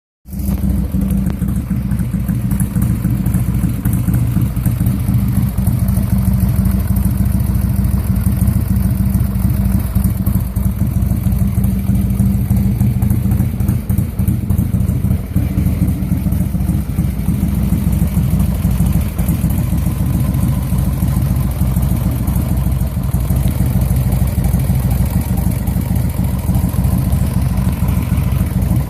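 A Buell motorcycle's big-bore 90-cubic-inch V-twin with big cams, running steadily at idle, and carrying a mechanical noise that appeared after a few hard launches. It starts just after the beginning and holds an even level.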